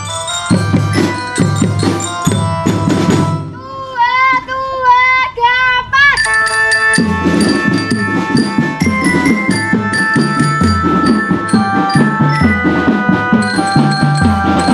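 A school marching drum band playing: rhythmic marching drums under steady melody notes from mallet or keyboard instruments. About four seconds in the drumming breaks off briefly for a wavering, bending high tone, then the drums and melody come back in about six seconds in.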